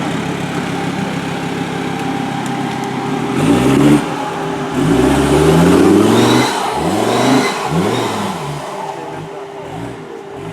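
Competition car's engine idling steadily, then revved in a run of rising-and-falling sweeps starting about three and a half seconds in, the longest lasting well over a second, before settling lower near the end.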